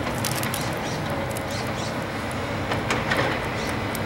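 Diesel engines of two tracked hydraulic excavators running steadily as the machines swing their booms and buckets, with short metallic clanks and squeaks from the working arms and a louder clank about three seconds in.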